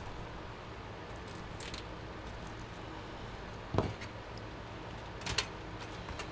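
Faint handling noises of cables and a pair of side cutters being worked inside and around a steel PC case: a few scattered clicks and knocks, the loudest a knock a little under four seconds in and a cluster of clicks about a second later, over a steady low hum.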